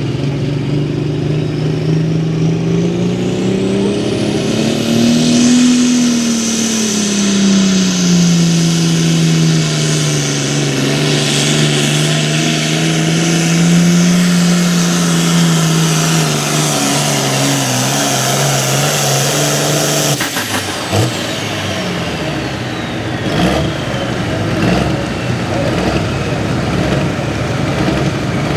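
Turbocharged diesel pulling tractor at full throttle under sled load. The engine pitch rises to a peak about five seconds in, then holds fairly steady under a high whine. About twenty seconds in the engine drops off sharply and the whine winds down, leaving a lower, uneven rumble.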